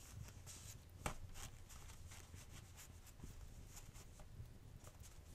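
Fireplace crackling softly: scattered small pops with one sharper snap about a second in, over a low steady rumble. Soft rustling comes and goes among the pops.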